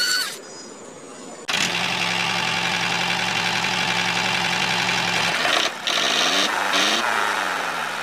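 A motor running steadily, starting abruptly about a second and a half in, its pitch sliding up and down a few times in the last couple of seconds before it cuts off at the end.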